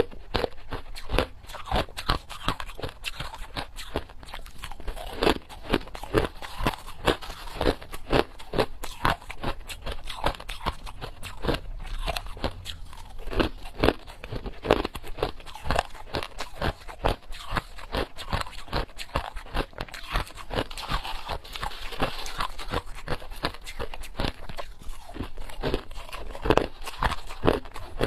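A person biting and chewing ice: a steady, dense run of sharp, brittle crunches, several a second, with no pauses.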